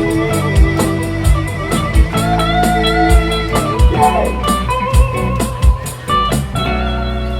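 Live band music: an electric guitar line with bent notes over a steady drum beat. The drums stop about six and a half seconds in and a final chord rings out.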